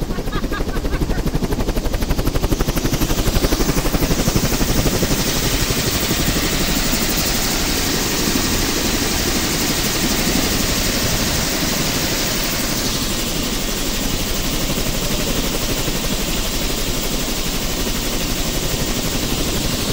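Turbine helicopter running on the ground with its main rotor turning, a steady rapid rotor chop under a turbine hiss. The hiss swells a few seconds in and eases off again about two-thirds of the way through. It is running while luggage is hot-loaded into the baggage hatch.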